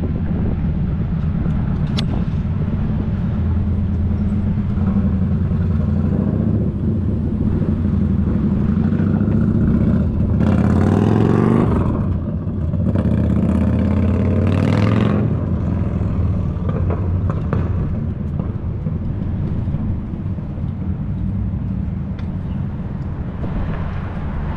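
Road traffic with cars passing close by, over a steady low rumble of wind on the microphone of a moving bicycle. The two loudest pass-bys come about ten and fourteen seconds in.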